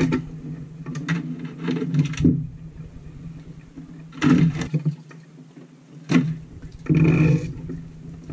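Spiny lobsters being hauled out of a boat's water-filled livewell: several short bursts of splashing and scraping over a steady low hum.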